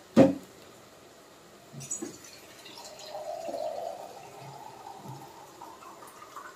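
A steel slotted ladle knocks once sharply against a stainless steel pot about a quarter second in, then stirs thick mutton curry with soft wet sounds. A faint hum runs through the second half.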